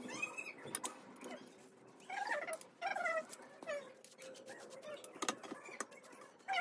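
Short whining calls from a domestic animal, each one falling in pitch, heard several times, with a few sharp clicks in between.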